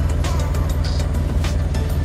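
Background music with a steady beat, over the steady running of a forklift engine.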